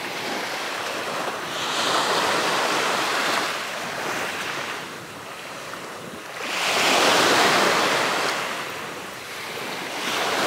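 Small sea waves washing in on the shore, a hiss that swells and falls back, with the biggest wash about two seconds in and again around seven seconds.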